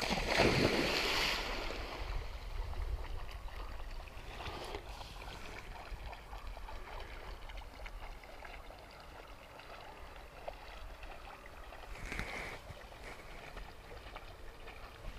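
A retrieving dog splashes into a pond in the first second or two, then swims off, leaving a steady low wind rumble on the microphone with faint water noise and a couple of brief swells.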